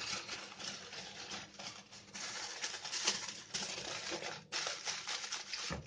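Aluminium foil crinkling and rustling as it is folded and pressed tightly around a fish parcel, a continuous run of quick irregular crackles.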